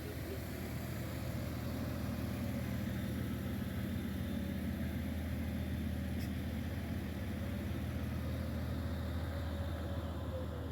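Bus engine idling steadily, an even low-pitched drone.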